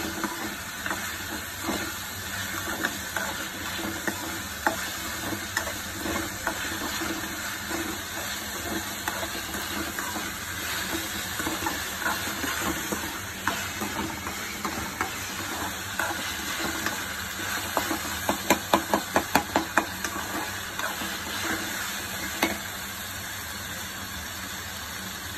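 Chopped onions and ginger-garlic paste sizzling in an aluminium kadai as they are sautéed, stirred with a metal ladle that scrapes and clicks against the pan. About three-quarters of the way through comes a quick run of about eight sharp taps of the utensil on the pan.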